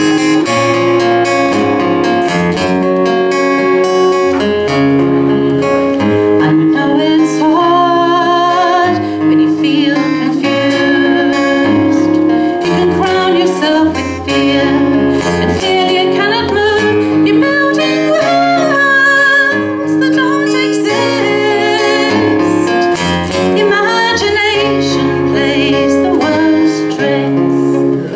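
Folk song played live: a strummed acoustic guitar with a woman singing.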